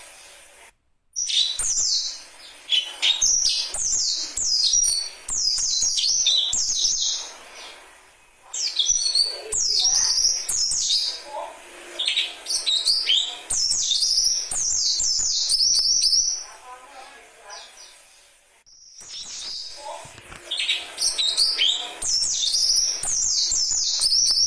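Young dakun birds calling, a rapid string of high chirps in phrases several seconds long, broken by short pauses about a second in, around eight seconds in, and from about sixteen to nineteen seconds.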